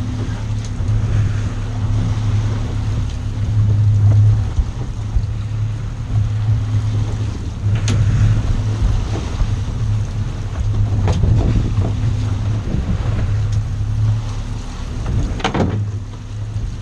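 Boat engine running with a steady low drone, under wind on the microphone and water noise, with a few sharp knocks, the loudest late on.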